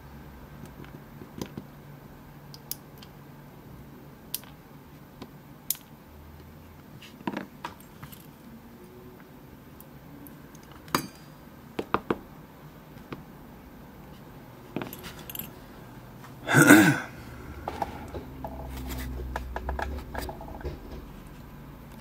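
Small scattered clicks and taps of brass lock pins, springs and the lock's core being handled and set down on a parts tray while the lock is taken apart. One louder brief sound comes about three-quarters of the way through.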